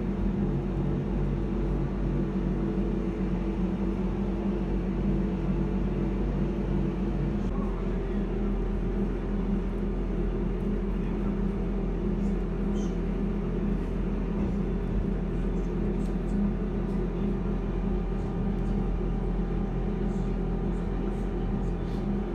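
Electric mountain train running steadily, heard from inside the carriage: a constant drone of motors and running gear with several steady hum tones, and a few faint clicks and rattles in the second half.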